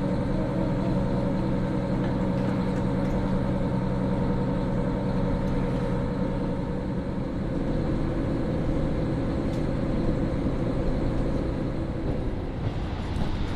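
KiHa 40 diesel railcar's engine running with a steady, even drone. Near the end the steady note fades, leaving a broader rumble.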